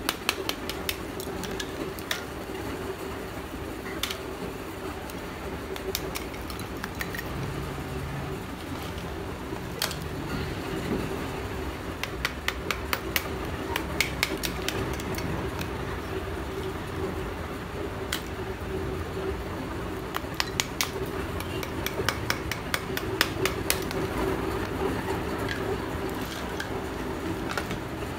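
Small hammer tapping and chipping lumps of black roasted multani mitti (Fuller's earth clay): clusters of quick, light knocks and cracks with short pauses between them. A steady low hum runs underneath.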